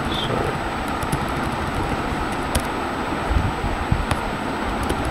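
Steady background noise, a hiss and low rumble, with a faint click about two and a half seconds in.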